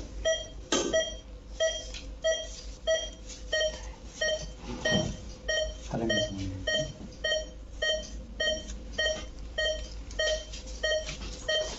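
Patient monitor's pulse-oximeter beep sounding with each heartbeat: short identical pitched beeps in a steady train, a little under two a second.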